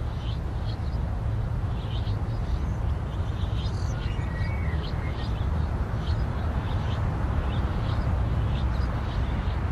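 Outdoor ambience: a steady low rumble with small birds chirping faintly and repeatedly, and one short gliding call about four seconds in.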